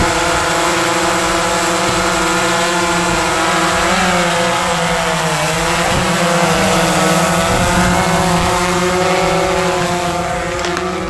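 DJI Phantom 3 Professional quadcopter's four motors and propellers buzzing in flight just after takeoff, the pitch shifting up and down as the motors change speed.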